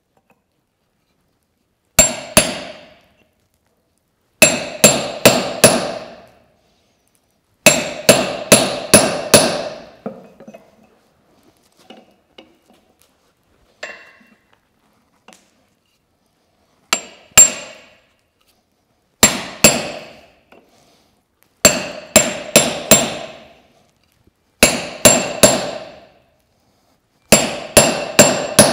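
Hammer blows on hot steel over an anvil, coming in quick bursts of two to five strikes, each strike ringing briefly. There is a pause of several seconds in the middle with only a few faint taps, and then the bursts resume.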